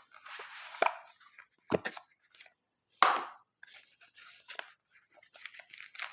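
A cardboard product box being opened and handled: packaging rustling and sliding, with two sharp knocks about two and three seconds in.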